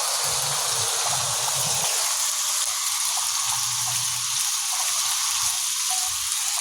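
Steady hiss of chicken and burgers sizzling on a grill.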